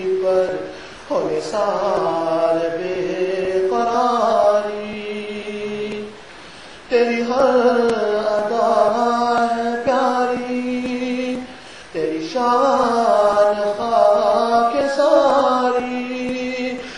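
A man's voice chanting an Urdu naat without instruments, in long melodic phrases with held notes. The phrases break briefly about a second in, around six seconds in and near twelve seconds in.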